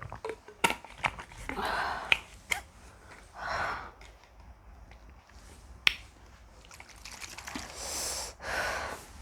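A person's heavy breaths, four in all, with several sharp clicks and taps in between.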